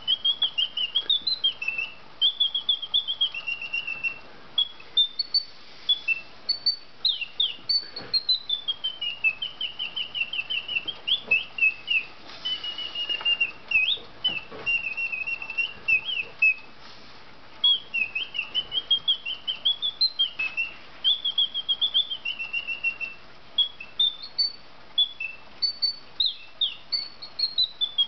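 Mechanical singing bird of a vintage alarm clock whistling its song as the alarm: quick chirps, warbling trills and rising and falling slides, with a couple of brief breaks.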